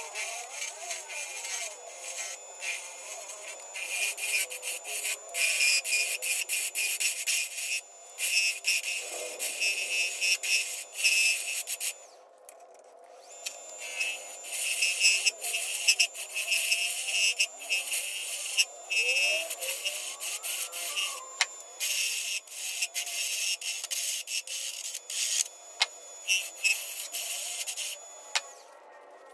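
Turning tool cutting a spinning maple and purpleheart spindle on a wood lathe: a hissing scrape that comes and goes in short strokes as the tool is pressed in and lifted off, with a pause about twelve seconds in.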